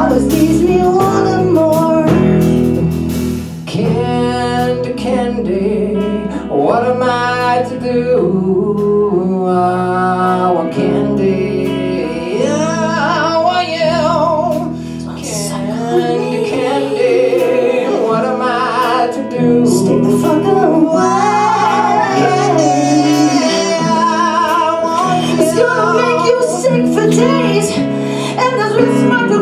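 Live rock band of electric guitar, bass, keyboard and drums playing a grunge-style song, with a woman and a man singing lead vocals over it.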